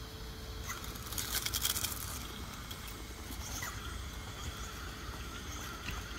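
Radio-controlled rock crawler picking its way over stones, its tyres and chassis crunching and clattering on rock and dry leaves, with a burst of rapid crackling about a second in and scattered single clicks after.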